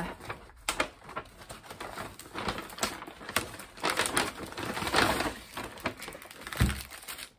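White paper carrier bag rustling and crinkling in irregular bursts as hands rummage inside it, with a short low thump about six and a half seconds in.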